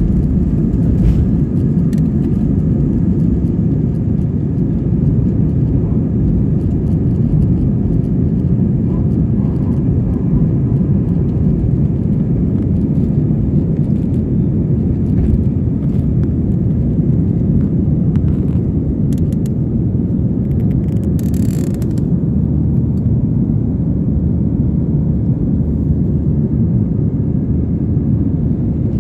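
Cabin sound of an Airbus A320-family jet climbing out just after takeoff: the engines at climb power make a steady, deep rumble with airflow noise. A brief hiss sounds about three-quarters of the way through.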